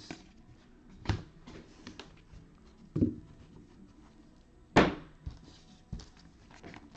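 Trading cards being handled on a tabletop: a few scattered soft knocks and clicks, the loudest about five seconds in.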